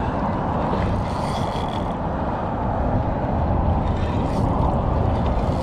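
Spinning reel being worked while a hooked redfish is fought, a steady mechanical whirring over a dense low rush of noise.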